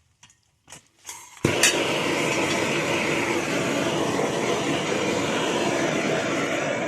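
A few faint clicks, then about one and a half seconds in a sudden, steady, dense metallic clatter begins and carries on at an even level, the sound of many small metal pieces rattling together.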